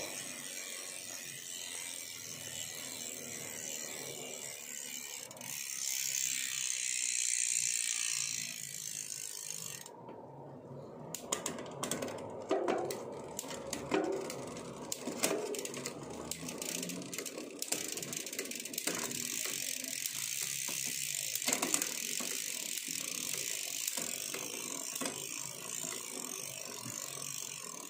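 Mountain-bike drivetrain turned by hand on a stand: a Shimano 12-speed chain running smoothly over the rear cassette, with the rear hub's ratchet ticking. About ten seconds in, the steady running gives way for several seconds to a string of separate clicks.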